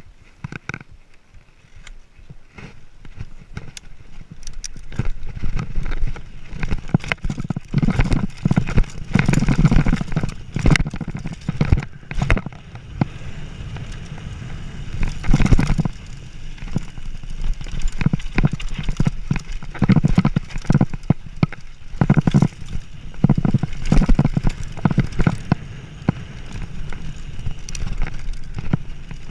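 Mountain bike clattering and thudding over rocks, an uneven run of knocks over a low rumble that grows louder about six seconds in.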